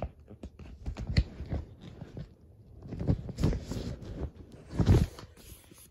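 Paper and plastic record sleeves being handled: irregular rustling and crinkling with small clicks, loudest about three seconds in and again near five seconds.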